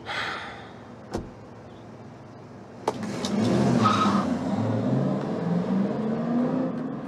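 Two sharp knocks, the second like a car door being shut, then a car engine runs louder from about three seconds in as the car moves off.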